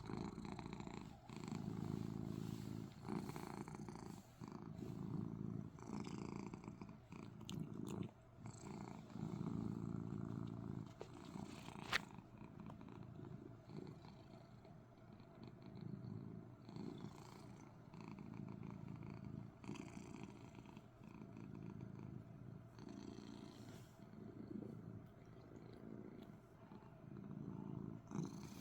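Domestic cat purring close up, a low rumble that swells and eases in repeating phrases a second or two long. One sharp click about twelve seconds in.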